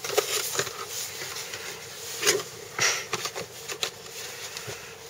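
A cardboard donut box being handled and its lid lifted open: scattered scrapes, taps and rustles of the box, loudest about two to three seconds in.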